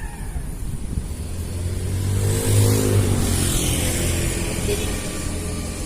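A motor vehicle passing close by: its engine and tyre noise swell about two seconds in, peak, then slowly fade away.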